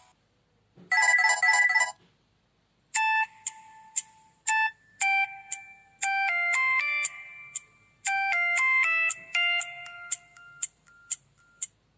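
Preloaded ringtones of a Samsung SGH-U900 Soul mobile phone: a short burst of electronic tones lasting about a second, then after a pause a synthesized melody of bright pitched notes over sharp ticking percussion that stops just before the end.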